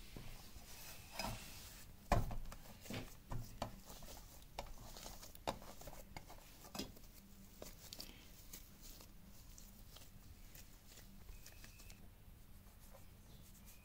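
Soft maida dough being handled and kneaded by hand in a bowl: scattered soft taps and knocks, with a sharper knock about two seconds in. It settles to near quiet over the second half.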